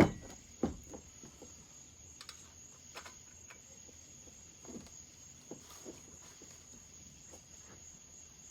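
Crickets chirping steadily, with a few light taps and knocks from hand tools on a chainsaw being taken apart. The loudest knocks come at the very start and less than a second in.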